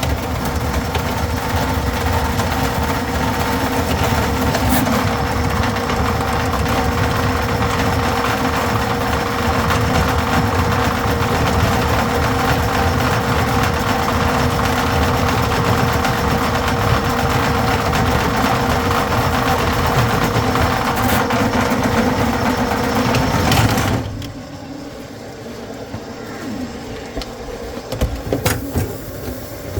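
Electric drain-cleaning machine running steadily with a constant motor hum, its cable turning in the drain line. The motor cuts off suddenly about 24 seconds in, leaving quieter handling noise and a few sharp clicks near the end.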